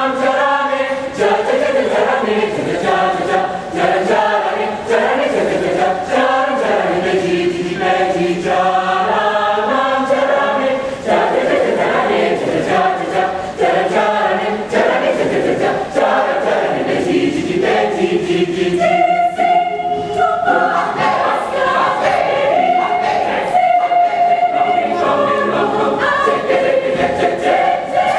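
Indonesian university choir singing a cappella in several-part harmony, with a long held high note from about twenty seconds in.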